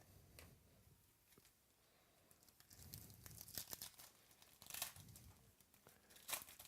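Faint crinkling and tearing of a foil trading-card pack wrapper being ripped open and handled, in irregular crackly bursts that thicken about two seconds in.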